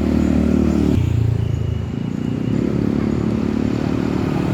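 A large bus's diesel engine running close by, its low note changing about a second in.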